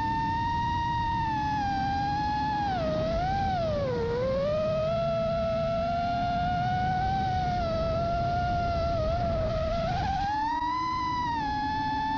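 FPV quadcopter motors and propellers whining, the pitch sliding down and back up with the throttle: a dip about three to four seconds in and a rise near the end. Wind rushes over the drone-mounted camera's microphone underneath.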